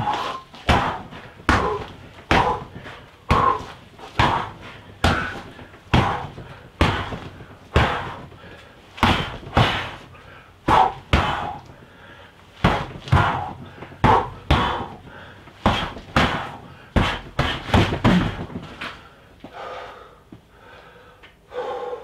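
Gloved punches and strikes landing on a freestanding torso training dummy, a steady series of dull slapping thuds roughly one every three-quarters of a second. The blows stop about three seconds before the end.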